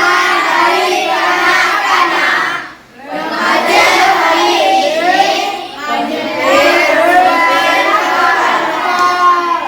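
A group of children singing together without accompaniment, in long sustained phrases with a short break about three seconds in.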